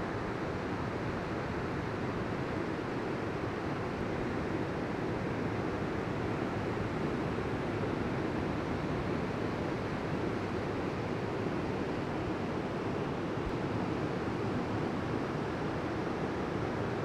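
Ocean waves breaking on a beach, heard as a steady, even rush of surf with no distinct crashes.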